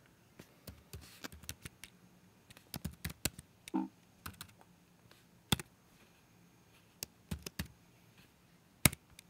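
Typing on a computer keyboard: irregular key clicks in short runs, with one much louder keystroke near the end.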